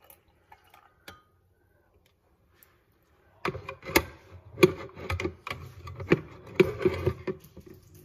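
A few faint drips and clicks as a pitcher finishes pouring a dark drink into a glass. From about three and a half seconds in, a hand handles the glass on a granite counter, giving a run of sharp clicks and knocks with rustling between them.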